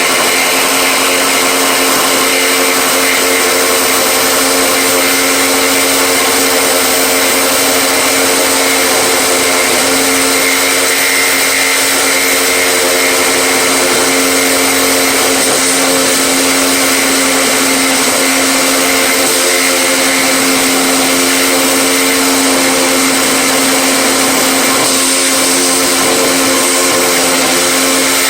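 An electric power tool's motor running steadily and loudly throughout, with a steady whine and no pauses.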